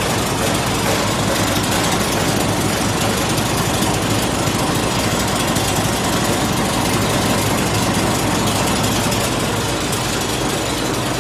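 Copper wire recycling machine (wire granulator) running steadily with a dense, even mechanical noise of motors and the chopping and grinding of cable.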